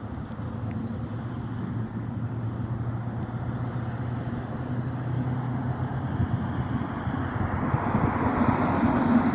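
Highway traffic going by, with a steady low engine hum, then the rush of a vehicle swelling louder and passing close near the end.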